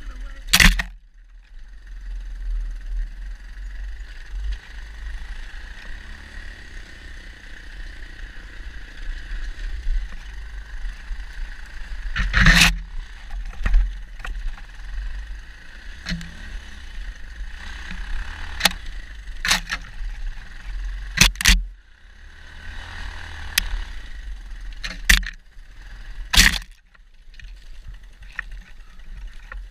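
Dirt bike ridden hard on a dirt trail, heard from a helmet-mounted camera: a steady rumble of engine and wind buffeting on the microphone, broken by about eight sharp knocks and cracks.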